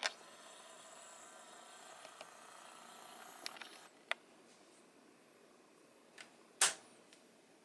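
A small electric motor whirs faintly and steadily for about four seconds, then stops. A few light clicks follow, then one sharper plastic clack near the end, the LEGO brick hood of the truck model being shut.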